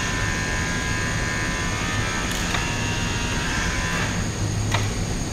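BMW K1600's ABS hydraulic unit pump running with a steady electric whine as the scan tool cycles it to flush the ABS module. About four seconds in, the whine cuts off as the pump is switched off, and a click follows as the valves close.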